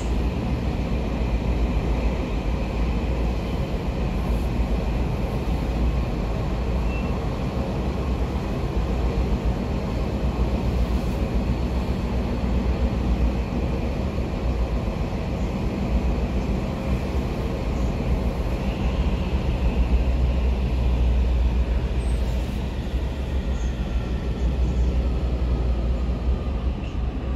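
Munich U-Bahn train running through a tunnel, heard from inside the passenger car: a steady deep rumble of wheels on rails. A faint whine drifts in pitch in the second half.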